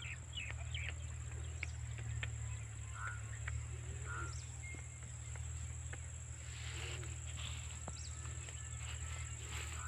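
Outdoor field ambience: a steady high insect drone, with scattered short bird chirps over a steady low hum.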